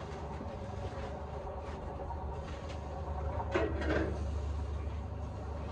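Faint clicks and taps of handling over a steady low hum, with a slightly louder short sound about three and a half seconds in.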